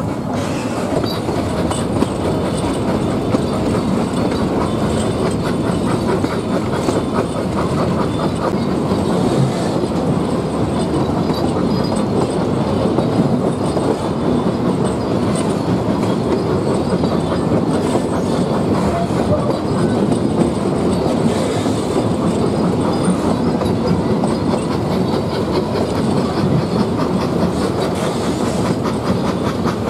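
Puffing Billy narrow-gauge steam train running, heard from aboard one of its open-sided wooden carriages: a steady rattle with fast clickety-clack of the wheels on the track.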